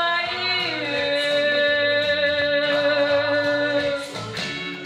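A woman singing the closing long held note of a song over a karaoke backing track through a microphone and PA. Her voice steps down in pitch about half a second in, holds steady, and fades out about four seconds in, leaving the backing track.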